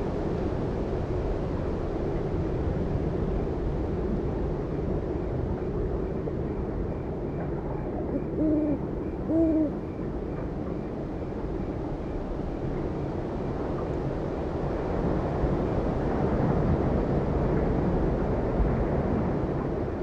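Steady night wind blowing, swelling a little in the later seconds, with an owl hooting twice, about a second apart, near the middle.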